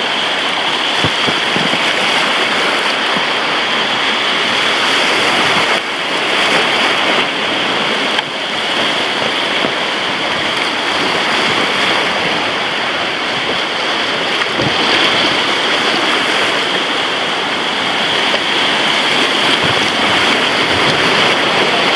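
Whitewater rapids rushing loudly and steadily around an inflatable raft.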